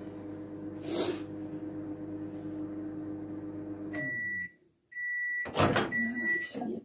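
Valberg built-in microwave oven running with a steady hum, and a click about a second in. About four seconds in the hum sinks in pitch and stops, and the oven gives a string of short high beeps. Near the end comes a clunk as the door is opened.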